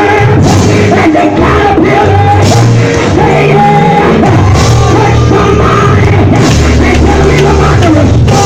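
Loud, up-tempo church music with drums and a heavy bass line, with voices singing and shouting over it.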